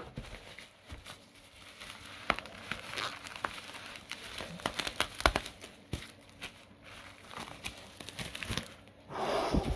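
Plastic bubble wrap crinkling and crackling as it is handled and pulled back by hand: irregular sharp crackles throughout, with a louder rustle near the end.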